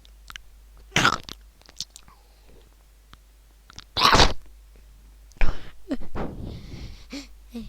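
Short, sharp bursts of a person's breath noise: one about a second in, the loudest about four seconds in, and a ragged cluster from about five and a half seconds.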